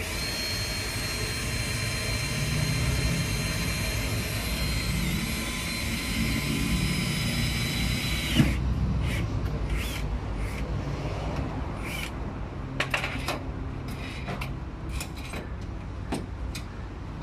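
Power drill running steadily with a high whine for about eight seconds, then stopping abruptly with a knock. After that come scattered light clicks and knocks.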